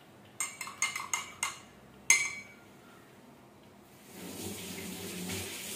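A cat lapping milk from a shallow steel plate: a quick run of small wet taps and clicks against the metal, then one sharper metallic clink about two seconds in. A steady rushing noise rises for the last couple of seconds.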